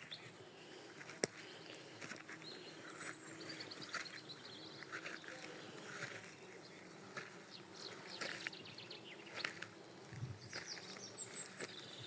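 Outdoor natural ambience: small birds chirping in short repeated calls over a faint steady insect buzz. There is one sharp click about a second in.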